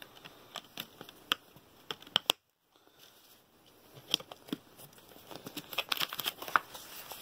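Handling noise from an opened Blu-ray steelbook: small plastic clicks and taps from the disc tray and discs, with light rustling. There is a pair of sharp clicks about two seconds in, then a denser run of clicks and rustle in the second half.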